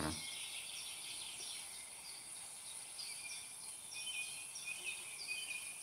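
Quiet outdoor ambience: a steady high insect trill with small birds chirping again and again.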